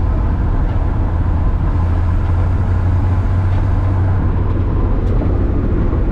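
A 1993 Ford F150's 300 cubic-inch inline-six engine and drivetrain running at a steady cruise, heard inside the cab, mixed with tyre noise on gravel. A steady low drone that eases slightly about four seconds in.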